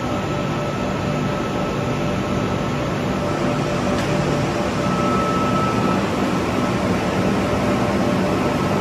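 Steady drone of machinery and ventilation inside a large train maintenance shed, with a low hum and a few faint steady tones.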